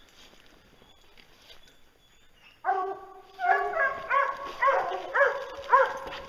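A hunting hound baying: one long drawn-out bawl about two and a half seconds in, then a run of short barks about two a second.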